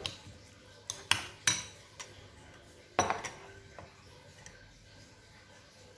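Metal cutlery clinking against ceramic bowls while beaten egg is stirred into a crumbled tofu and vegetable filling: four sharp clinks in the first three seconds, then only faint background.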